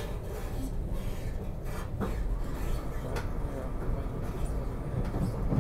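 Steady low rumble inside a moving regional rail passenger car, with a few sharp clicks about two and three seconds in.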